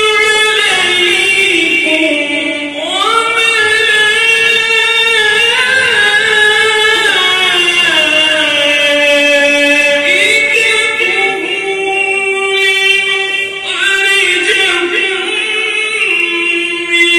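A man reciting the Quran aloud in a melodic style, through a hand-held microphone. He draws out long held notes that slide up and down in pitch, with only brief breaths between phrases.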